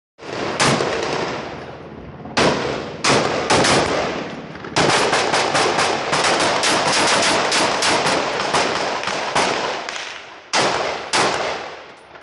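Automatic gunfire in a firefight: a few short bursts in the first four seconds, a sustained run of rapid fire from about five seconds in to about ten, then two more short bursts near the end, each echoing as it dies away.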